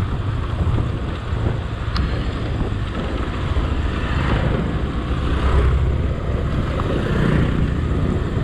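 A vehicle on the move: steady engine and road noise, heaviest in the low end, with wind buffeting the microphone.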